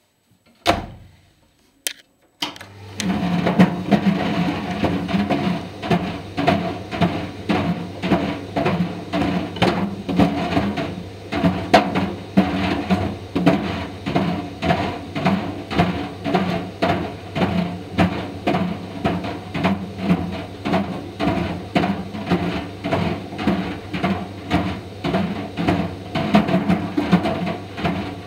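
Indesit IDV 65 tumble dryer starting up after a thump and a click, then running with a steady motor hum while Mister Steamy dryer balls knock against the turning drum in a regular rhythm, about one knock a second.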